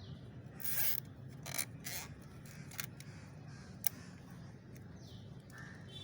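Hand work on a fiber optic cable and its tools: a few short rasping strokes, the loudest about a second in, then scattered sharp clicks.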